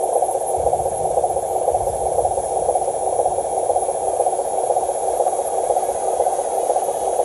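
Electric drive motor and gearbox of a loaded RC dump truck running as it crawls over planks and up a dirt slope, a steady rough whirring noise. A little low rumbling comes in during the first couple of seconds as it comes off the planks.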